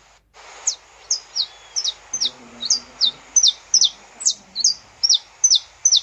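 Saffron finch (canário-da-terra) singing: a run of sharp, high notes, each sweeping quickly downward. About three notes a second, starting half a second in after a brief gap.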